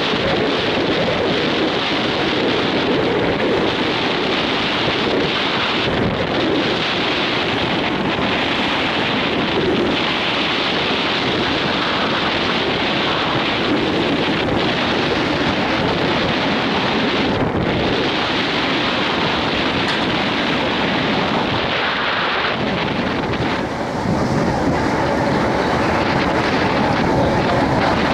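Steady wind rushing over the microphone on a ship's open deck, with the sea's wash underneath. Near the end a faint steady hum joins in.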